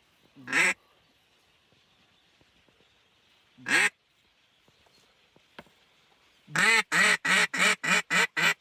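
Mallard-style duck call blown in quacks: one quack, another about three seconds later, then a quick run of about eight quacks near the end, calling to incoming ducks.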